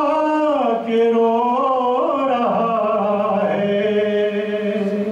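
A man singing an Urdu naat unaccompanied, drawing out the line in long held notes that slide from pitch to pitch, with a brief break about a second in.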